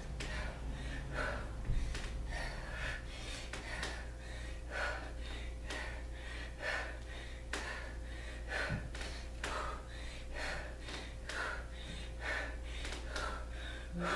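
A woman breathing hard in a steady rhythm, a sharp breath about once a second in time with her kettlebell goblet squat reps, over a faint steady hum.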